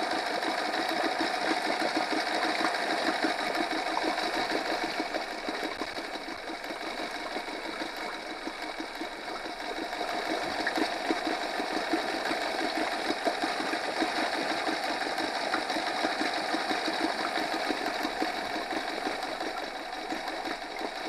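Honda 8 hp four-stroke outboard idling steadily, with its lower unit running in a bucket of water. It holds a fast, even idle after its carburetor's idle jet was cleaned and the idle screw was turned clockwise.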